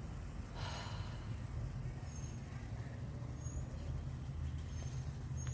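Outdoor ambience: a steady low rumble, with a short breathy exhale about half a second in and a few faint high bird chirps.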